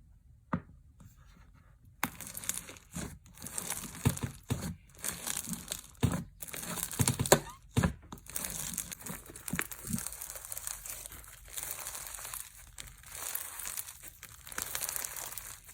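Slime being worked by hand, giving dense crackling and crinkling with many small sharp pops. A single click comes about half a second in, and the crackling starts about two seconds in.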